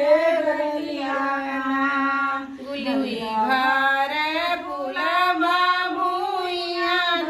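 Women singing a kajari, a Bhojpuri folk song to Gaura Mai (Parvati), in long drawn-out melodic phrases.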